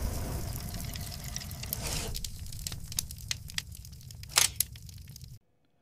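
Fire sound effect: a low, dense rush of flames for about two seconds, then crackling with scattered sharp cracks, the loudest a little past four seconds in, cutting off suddenly shortly before the end.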